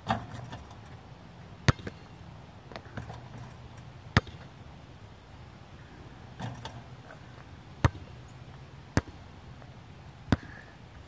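A basketball bouncing on an outdoor court: six sharp bounces at uneven intervals, a second or more apart, over a faint steady low hum.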